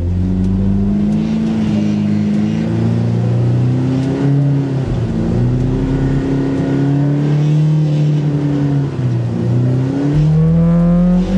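Polaris RZR Pro R's 2.0-litre inline four-cylinder engine running under throttle on a steep snowy climb, its revs wavering up and down and rising near the end. The rear wheels are spinning on snow over slick rock.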